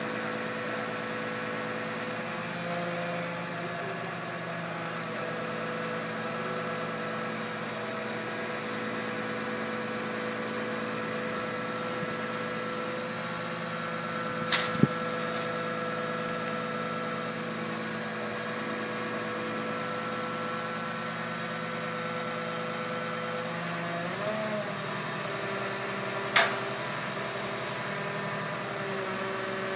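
Large mobile crane's diesel engine running steadily, its note shifting about 24 seconds in. Two sharp knocks close together about halfway, and another near the end.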